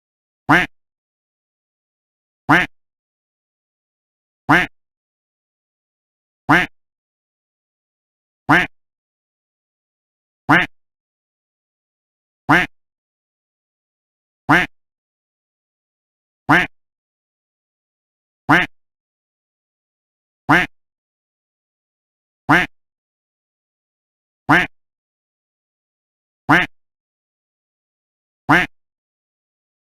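A duck quack sound effect looped: fifteen identical short quacks, one every two seconds, with dead silence between them.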